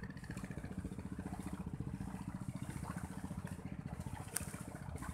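A small engine running steadily with an even, rapid putter, and a single sharp click about four seconds in.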